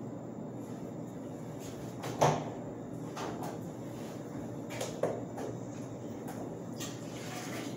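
A sharp knock about two seconds in and a second, smaller knock about five seconds in, as of something being set down or shut, with a few faint ticks, over a steady low room hum.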